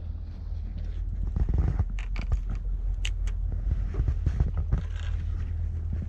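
Small metallic clicks and scrapes of pliers and hooks as a lure is worked out of a grouper's mouth, over a steady wind rumble on the microphone.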